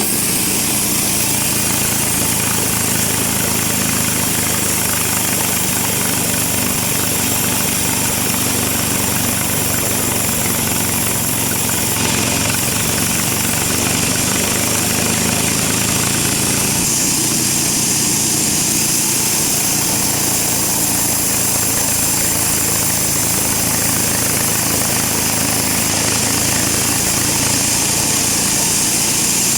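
Sawmill saw running steadily as it cuts through a round teak log, a continuous loud machine noise over a low motor hum.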